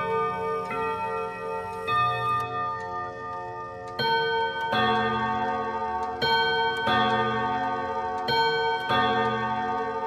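Chime rods of a 1962 French ODO 24 clock, ten rods and ten hammers, struck in turn to play a chime melody, each note ringing on under the next. The strikes get louder about four seconds in.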